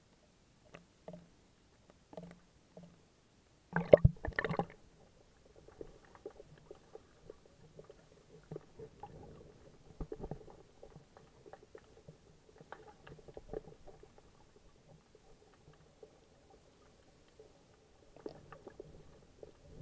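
Muffled sound through an action camera's waterproof housing: a few light knocks, then a loud splash about four seconds in as the camera goes under the sea surface. After it comes a faint, uneven underwater rumble of moving water with scattered small crackles.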